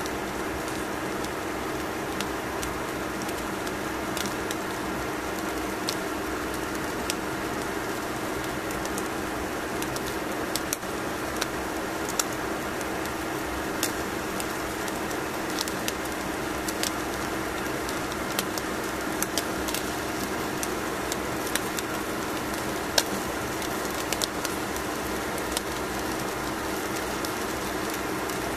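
Hot grilled salmon crackling on aluminium foil: scattered sharp pops, a few every couple of seconds, over a steady hum with a low tone.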